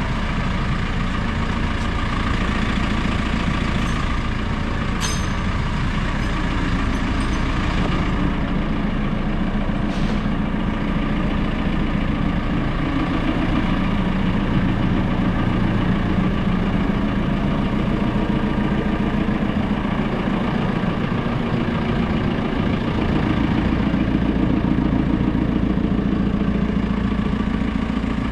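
JCB 4CX backhoe loader's diesel engine running steadily, its note shifting slightly up and down, with two brief sharp clicks about five and ten seconds in.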